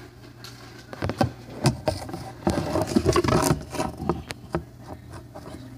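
A string of irregular knocks and scuffs, busiest in the middle.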